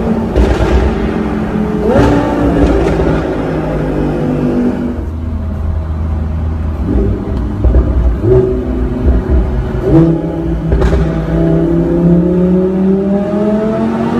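Audi R8 V10 engine through a Capristo aftermarket exhaust, revving and accelerating in a tunnel. It rises sharply in pitch near the start and again about two seconds in, runs lower and steadier through the middle, then from about ten seconds in climbs in one long pull.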